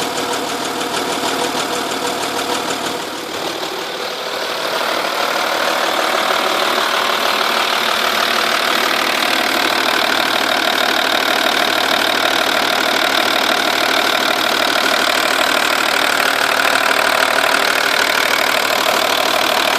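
2.5 V6 TDI diesel engine idling with a fast, even ticking, which the owner suspects is a blown exhaust gasket at the rear of the engine on the passenger side. The sound gets louder and brighter about four to five seconds in.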